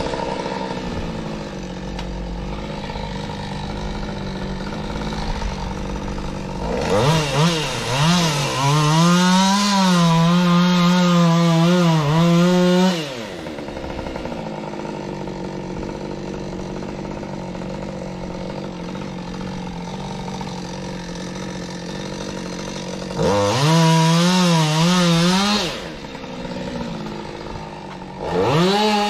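Petrol chainsaw alternating between idle and full throttle. It is revved hard twice, for about six seconds and then about three, with the pitch wavering as it cuts into the tree trunk, and it is revved again near the end.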